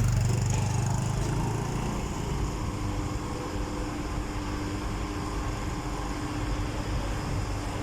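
A motor vehicle's engine running, loud at first and fading over the first couple of seconds, then a steady low engine rumble with a faint steady tone.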